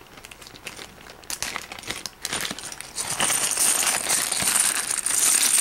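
Clear plastic bags of Lego pieces crinkling as they are handled and opened, with a few small clicks. The crinkling grows louder about three seconds in.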